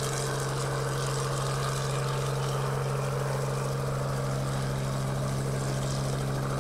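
Robinson R44 helicopter taking off and flying away, its piston engine and rotors running as a steady low hum over a rushing noise.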